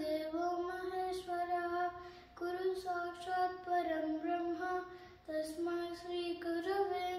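A young boy chanting a Sanskrit sloka in a steady sing-song voice. He sings it in phrases of two to three seconds, with short breaks between them.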